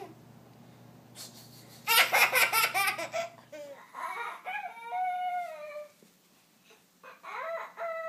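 A baby about 11 months old vocalizing: a loud, high-pitched squealing burst about two seconds in, then several drawn-out calls that slide down in pitch.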